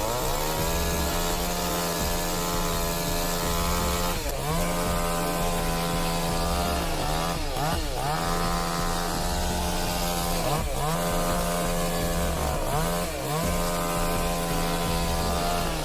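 Chainsaw running at high speed while cutting wood, its engine pitch held level and dipping briefly and recovering several times as it takes load.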